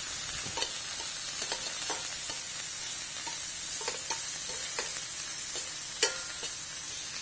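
Large Gulf shrimp sizzling in olive oil in a hot sauté pan, with light clicks of metal tongs against the pan as they are turned. One louder clink comes about six seconds in.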